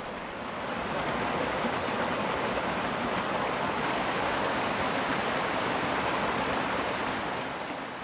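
A clear mountain stream rushing steadily over a series of small cascades. The rushing swells a little just after the start and eases slightly near the end.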